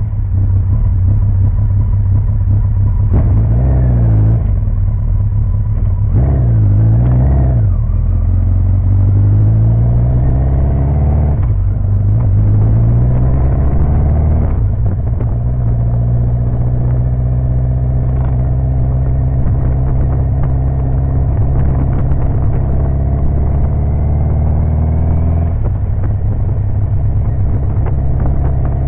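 Kawasaki 1000 GTR's inline-four engine pulling the motorcycle along, its pitch climbing and then dropping sharply at each upshift a few times, then holding a fairly steady cruise, picked up by a camera mounted on the bike.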